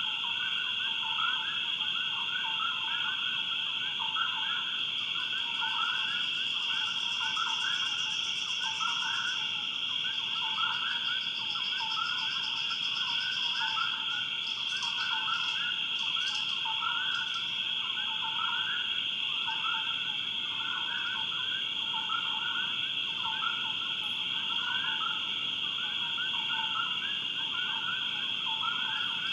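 Swamp night chorus: a steady high insect drone with many frogs calling below it in short, repeated chirps, a couple each second. A higher buzzing trill joins for a few seconds about a fifth of the way in.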